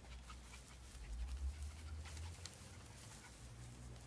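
Faint sounds from small Coton de Tulear dogs, with a low rumble on the microphone from about one to two and a half seconds in.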